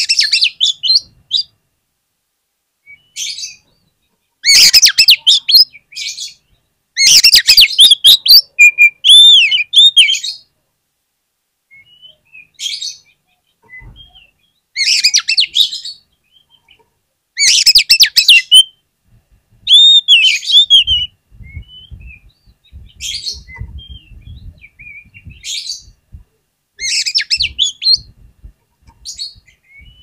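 Oriental magpie-robin (kacer) singing loudly in repeated phrases of rapid, varied whistles and harsh chatter. Each phrase lasts a second or two and is followed by a short pause.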